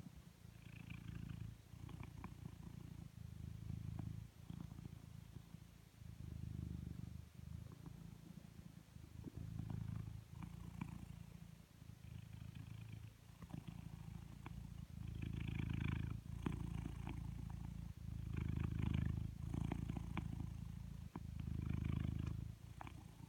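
Blue British Shorthair cat purring steadily, a low rumble that rises and falls in waves every two to three seconds.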